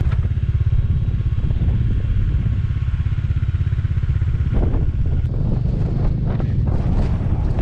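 Bajaj Dominar 400's single-cylinder engine running with a steady low beat. From about halfway, wind buffets the microphone.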